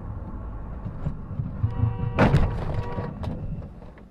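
A car rear-ends a white van in a dashcam crash: a loud thunk of the impact about two seconds in, with a short clatter after it, over steady road and engine noise.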